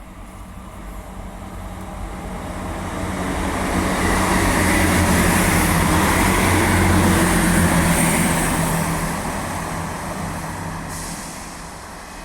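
Train passing through a station. The rumble and rail noise, with a low engine or traction hum, builds over about four seconds, stays loudest for several seconds, then fades away.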